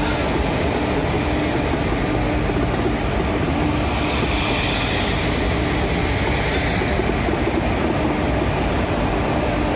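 A goods train hauled by Indian Railways electric locomotives passes close by at a steady loud level: wheels rumbling and clattering on the rails. A humming tone comes and goes through it. The locomotives give way to open steel freight wagons near the end.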